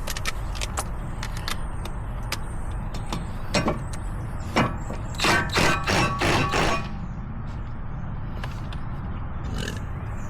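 Steady rumble of passing highway traffic, with scattered sharp metallic clicks and a cluster of louder clanks about halfway through from hand work on the car's front brake and hub.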